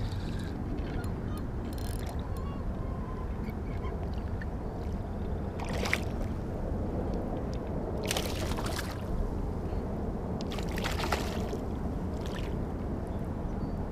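A hooked largemouth bass splashing and thrashing at the water's surface beside an inflatable kayak, in several short bursts through the second half, over a steady low background noise.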